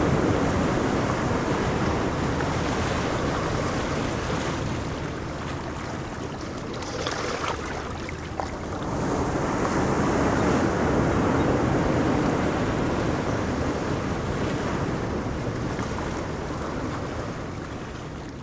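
Ocean surf washing onto a beach in a steady rush, easing off over the first few seconds, swelling again about nine seconds in as another wave comes in, then slowly ebbing.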